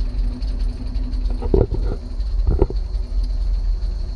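Kaiser Jeep M715's Tornado overhead-cam straight-six idling, not yet warmed up, heard from inside the cab as a steady low rumble. Two brief louder sounds stand out, about a second and a half and two and a half seconds in.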